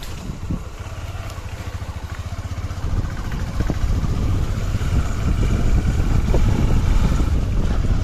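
Motorcycle engine running at low speed, a quick steady pulse, getting louder about three seconds in as it picks up.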